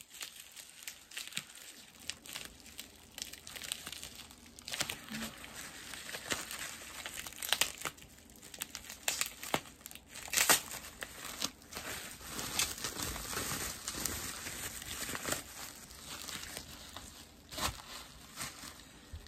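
Plastic bubble wrap being crinkled and pulled apart by hand, a run of irregular crackles with one sharper crackle about halfway through.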